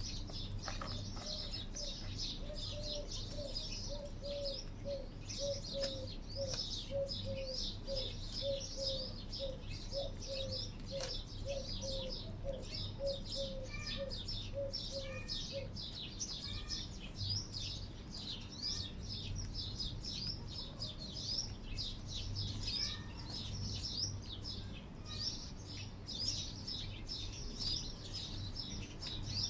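Many small birds chirping continuously, with a lower call repeated about three times a second through the first half.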